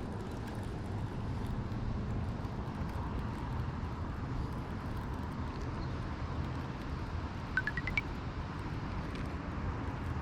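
Steady low outdoor background rumble, with a brief run of four quick rising chirps about three-quarters of the way through.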